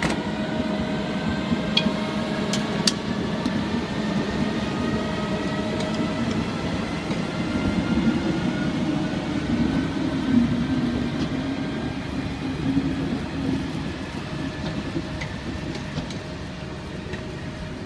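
SNCF BB 7200 electric locomotive pulling away from a near standstill, with a low rumble and hum and several whining tones that slowly rise in pitch as it gathers speed. There are a few sharp clicks about two to three seconds in, and the sound fades a little near the end as the locomotive draws away and the coaches roll past.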